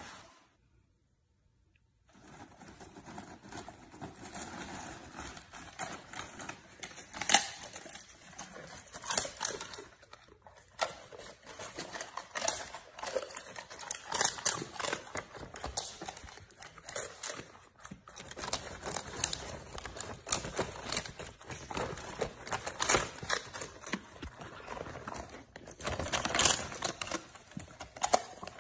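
Golden retriever crunching and chewing dried cod-skin treats: irregular crisp crunches, starting about two seconds in.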